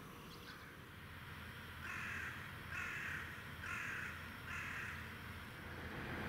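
A crow cawing four times, harsh calls a little under a second apart, over a steady low background rumble.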